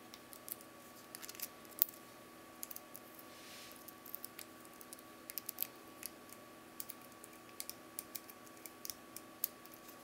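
Lock pick and hairpin tension wrench ticking and scraping inside a 30 mm cross-key padlock as its pins are picked: small irregular metal clicks, several a second, the loudest about two seconds in.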